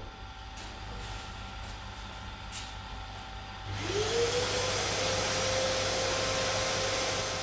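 About four seconds in, a small electric motor spins up, its whine rising and settling at a steady pitch over a loud hiss, and runs on, fading near the end: a hand power tool or dust extractor being used on a plastic bumper.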